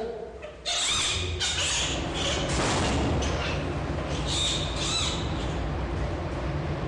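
Newborn giant panda cub squawking, a string of short, high-pitched squeals starting about a second in, over a steady low hum.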